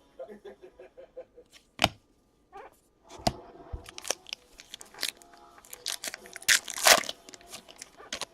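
Trading-card handling: light clicks and rustling as baseball cards and their pack wrapper are handled, with a louder tearing sound about six and a half seconds in.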